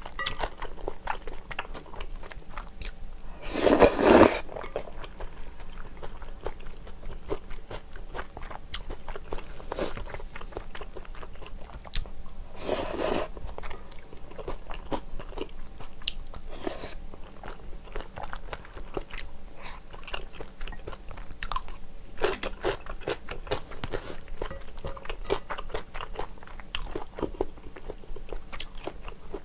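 Close-miked eating sounds of a person chewing spicy tteokbokki with flat glass noodles and Vienna sausages: a steady run of small wet clicks and smacks. A few louder, noisier bursts stand out, the loudest about four seconds in and another about thirteen seconds in.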